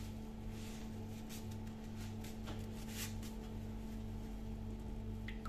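A steady low machine hum, with a few soft rustles and squishes as a cloth piping bag filled with meringue cream is handled and twisted shut.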